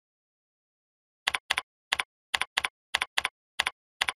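Computer keyboard typing: a run of about a dozen quick key clicks that starts a little over a second in.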